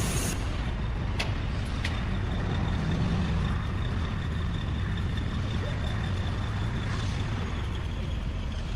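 Steady low mechanical rumble, like a large engine or heavy machine running, with two sharp clicks about one and two seconds in.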